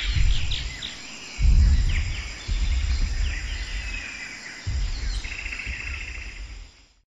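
Prehistoric-jungle soundtrack of an augmented-reality dinosaur animation: birds chirping and trilling over insect noise, broken by several deep low rumbles.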